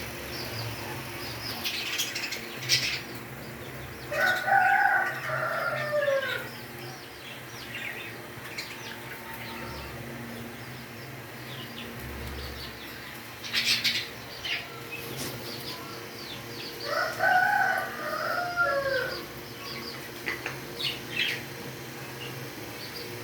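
Bird calls: two long, crowing-like calls about thirteen seconds apart, each falling away at its end, among many short chirps.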